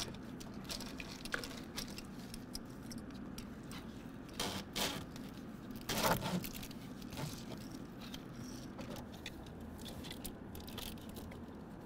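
Scattered rustling, scraping and clicking of a wiring harness being handled and routed through a pickup's engine bay, with louder clatters about four and a half and six seconds in.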